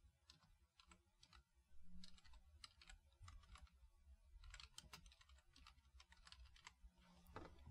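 Faint typing on a computer keyboard: irregular, quick keystrokes, some in short runs.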